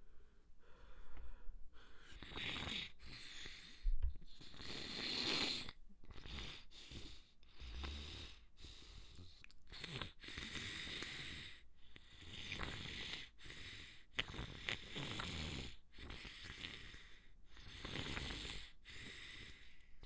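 A person breathing through a congested nose, a noisy breath every second or two, with a brief thump about four seconds in.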